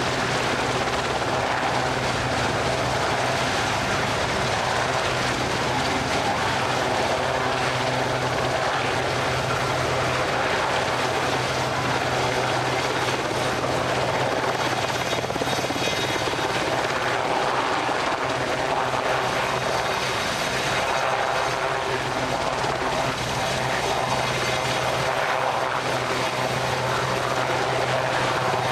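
Steady, unbroken engine drone with a constant low hum and a wash of noise over it, never changing in level.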